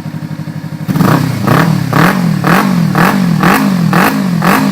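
Kawasaki Ninja 300's parallel-twin engine through a Roncar Two Way+ exhaust with its valve fully open in sport mode. It idles, then from about a second in is revved in quick blips, about two a second, each rising and falling in pitch, with a full-bodied note.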